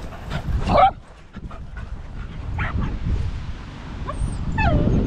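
Small dogs yipping and whining: a sharp yip just under a second in, then a thin, high whine that falls in pitch near the end.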